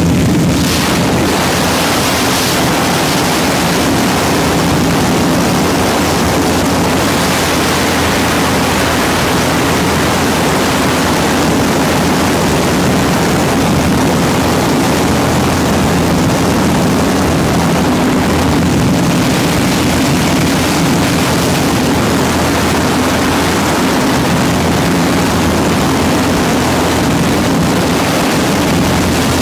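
Light propeller aircraft's engine droning steadily, heard from inside the cabin, with a constant rush of air noise over it.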